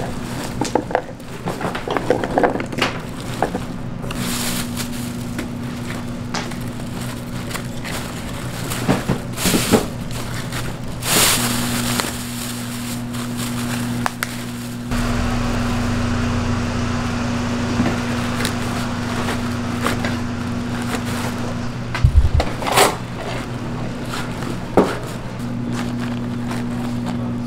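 Food-stall kitchen work: scattered scraping, knocks and crackling over a steady low hum, with the background shifting about halfway through.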